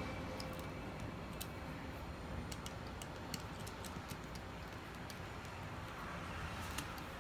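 Scattered light clicks and taps at an irregular pace over a steady low hum of room noise.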